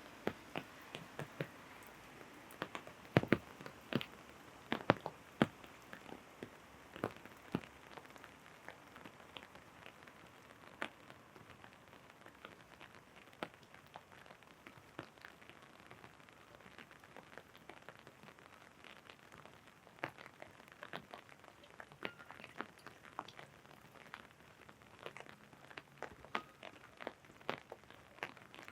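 Raindrops tapping irregularly on an umbrella overhead, over a steady hiss of rain. The loudest taps come a few seconds in.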